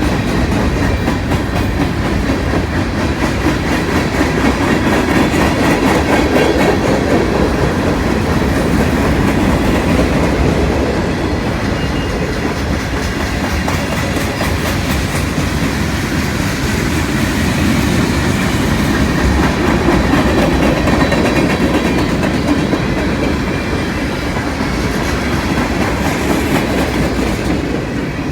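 Freight train cars rolling past at close range, a steady loud rumble with the wheels clicking rhythmically over the rail joints.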